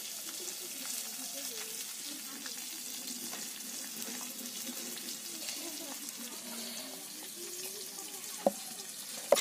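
A steady hiss with faint distant voices underneath, and one sharp tap a little before the end.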